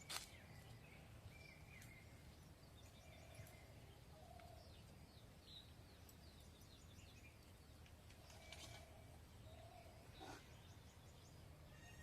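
Faint outdoor quiet with scattered small bird chirps and twitters over a low steady hum, and a single sharp click right at the start.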